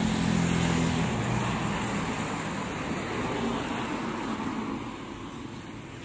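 Road traffic: a motor vehicle passing close by, its engine hum strongest in the first second or so, then the traffic noise fading away.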